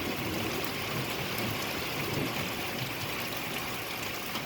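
Steady rain falling during a thunderstorm, an even hiss with no thunder clap.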